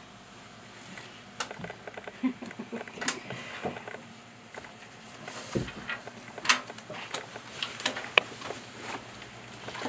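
Scattered light clicks and taps at irregular intervals, with a dull thump about halfway through.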